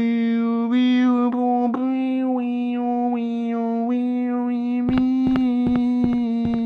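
A voice holding one steady sung note, its vowel sound shifting, with a fast clicking percussion beat coming in about five seconds in.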